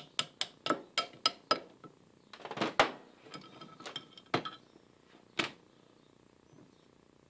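A plastic-faced hammer tapping quickly and evenly on a copper drift, about four taps a second, driving a shaft out of an Atlas/Craftsman lathe quick-change gearbox; the shaft is coming out easily and the taps stop a moment in. Then come light metallic clinks and a couple of sharper knocks as the loosened gears and shaft are handled and set down.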